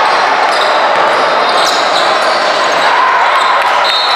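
Basketball game sound: a ball bouncing on the court over steady crowd chatter and voices. A thin high steady tone comes in near the end.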